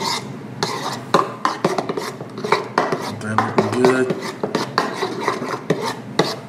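Metal spoon stirring a thick sour cream sauce in a ceramic bowl, with repeated quick clinks and scrapes against the bowl's sides and a wet, sticky stirring sound.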